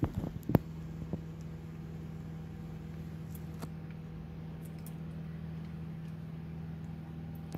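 Steady low mechanical hum, with a few sharp clicks and crinkles in the first second as a plastic milk packet is handled and poured, and one more click a little after halfway.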